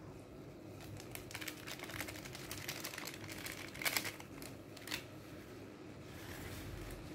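A small plastic food sachet crinkling and crackling in the hands as it is torn and squeezed out over a bowl of rice, in a rapid irregular run of crackles with the sharpest ones about four seconds in.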